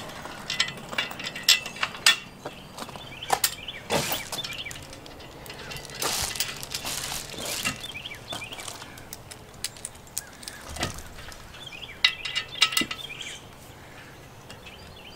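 Scattered clicks, knocks and clinks of metal guard parts and hardware being handled as a side wing is fitted onto a steel grille guard's tube, with a longer scraping stretch about six seconds in.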